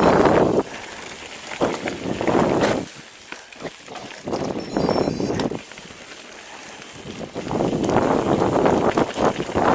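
Wind buffeting the camera microphone in repeated surges as a mountain bike rolls fast down a gravel forest trail, with tyres crunching over loose stones underneath. The gusts die down briefly twice and build strongly again near the end.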